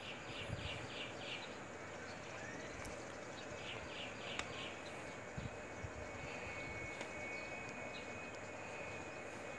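A bird calling twice, each a quick series of about four notes, over quiet outdoor background noise; a faint steady high tone joins about halfway through.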